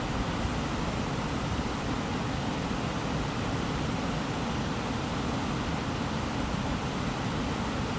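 Steady sleep-aid white noise: an unbroken, even hiss with most of its weight in a deep low rumble and a thinner hiss above, never changing.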